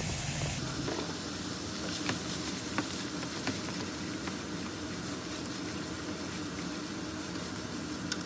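Diced ham, Chinese sausage and carrot sizzling in a hot frying pan while being stir-fried, with a few light clicks of wooden chopsticks against the pan.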